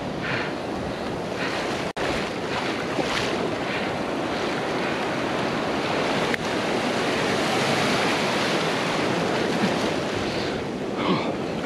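Shallow surf washing up and sliding back over the sand at the shoreline, with wind buffeting the microphone.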